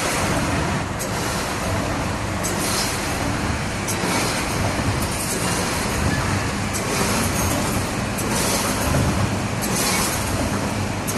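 Automatic welded wire mesh machine making galvanized mesh in rolls, running with a steady dense mechanical clatter and hum. A short sharp hiss-like burst repeats every second or so as it cycles.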